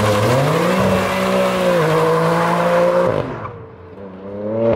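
BMW F82 M4's twin-turbo inline-six through an RPi GTM aftermarket exhaust, accelerating away hard: a loud rising exhaust note that holds, steps down in pitch briefly about two seconds in, then pulls on. A little after three seconds it drops away as the car moves off, then rises again more faintly near the end.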